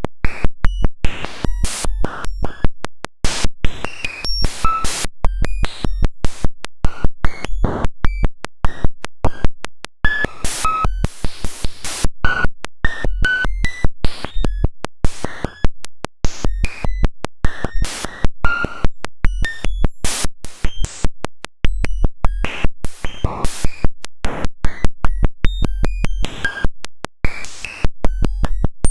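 Raw sonification of a Generations cellular automaton: the normalized population ratio, generation by generation, written straight in as wave samples. It comes out as a harsh, dense stream of clicks and buzzing noise with short blips at shifting pitches and a low hum that comes and goes.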